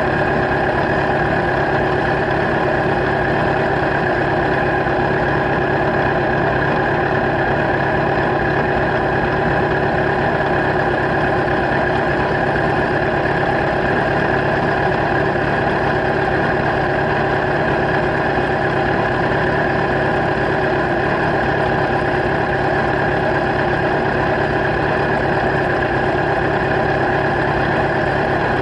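Kawasaki Z1000's inline-four engine idling steadily through LeoVince slip-on exhaust silencers.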